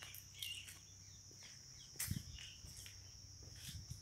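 Faint outdoor ambience: a steady high-pitched insect drone with scattered bird chirps, a soft thump about two seconds in and a couple of lighter knocks near the end.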